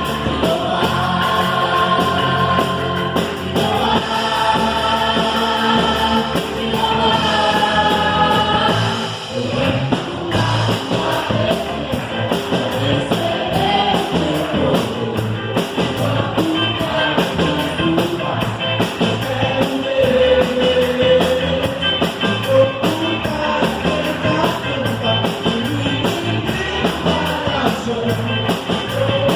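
Live worship band playing a song with a group of singers, drums and cymbals keeping time. Long held sung notes at first, then after a brief dip about nine seconds in, busier singing over the band.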